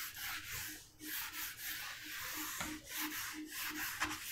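A whiteboard being erased: a hand-held eraser rubbed back and forth across the board in quick strokes, about five a second, making a dry scratchy rubbing.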